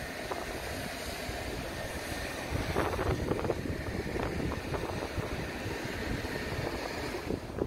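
Wind buffeting the phone's microphone, an uneven rumbling hiss, with a few brief louder gusts about three seconds in.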